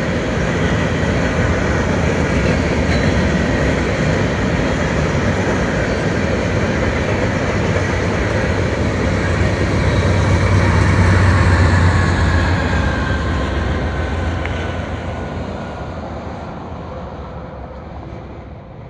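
Freight train of covered grain hopper cars rolling past with a steady rumble of wheels on rail. About ten seconds in, a BNSF diesel locomotive at the rear of the train passes, and the deep rumble is at its loudest. Faint tones then drop in pitch and the sound fades as the train moves away.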